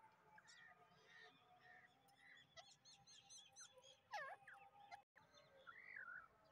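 Faint bird calls: a quick run of chirps, then a louder call that sweeps down and back up about four seconds in, and a short warble near the end. The sound drops out for an instant just after five seconds.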